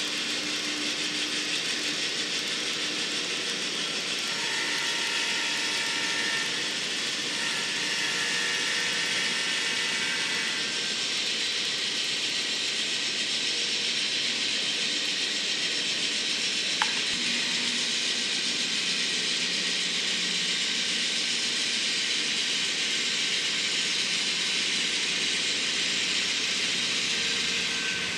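Running sound of N-scale model diesel locomotives, a steady hissing rumble. Two long horn blasts come in the first third, and there is one sharp click about two-thirds through.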